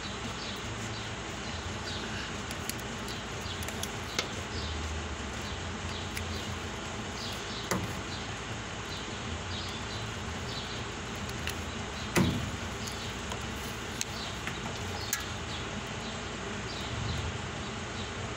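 Steady background noise with short, high chirps repeating throughout and a few sharp clicks and knocks as a hand handles a Mercedes truck's wiring harness and fittings by the chassis rail. The loudest knock comes about twelve seconds in.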